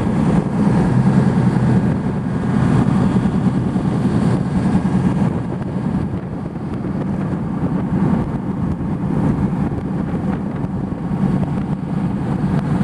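A boat's engine running steadily, a low pulsing hum.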